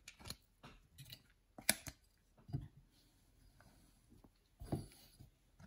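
Light clicks and taps of hard plastic trading-card holders being handled and set into display stands on a table, about half a dozen scattered clicks with quiet gaps between.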